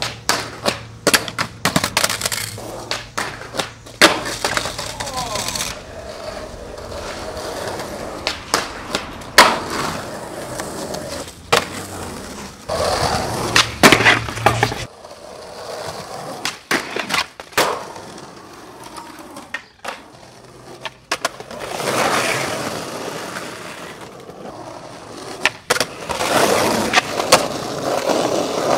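Skateboards on concrete: wheels rolling, with many sharp pops and landing slaps, and trucks grinding along a concrete curb ledge.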